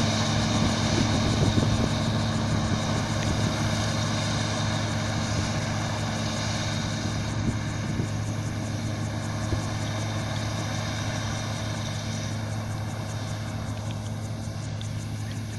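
Claas Lexion 450 combine harvester running: a steady mechanical drone with a constant whine of machinery, fading gradually.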